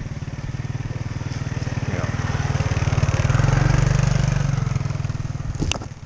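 Motorbike engine passing by, growing louder to a peak a little past midway and then fading away. A single sharp click near the end.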